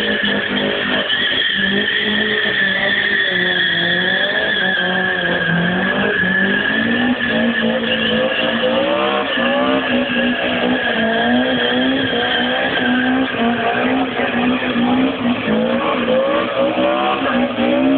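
Drift car's engine revving up and down over and over as it slides, its tyres giving a steady high squeal on wet tarmac. The revs swing faster and more often in the second half.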